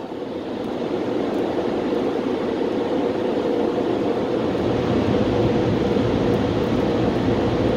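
Steady blowing of the LaserWash 360 car wash's air dryers, heard from inside the car's cabin, growing gradually louder.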